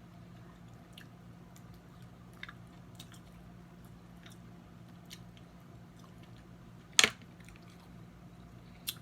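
Close-miked eating of snow crab legs: soft chewing and small clicks of the shells, with one sharp crack about seven seconds in and a smaller one near the end, over a low steady hum.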